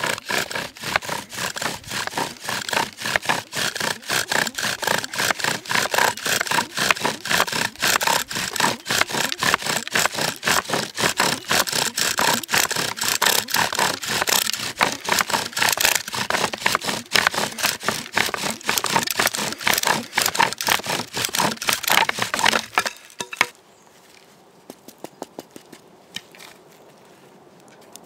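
Bow drill: a wooden spindle grinding in a notch of a wooden fireboard, scraping with each quick, even back-and-forth bow stroke as the friction makes smoke on the way to an ember. The drilling stops suddenly about 23 seconds in, leaving only a few faint clicks.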